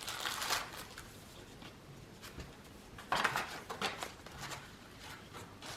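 Packaging being handled: short rustles and light taps, the loudest about three seconds in.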